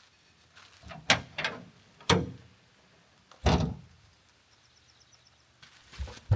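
Three loud knocks or bangs, each with a short ringing tail, about a second apart, then a quieter one near the end. A faint quick run of high chirps comes in between.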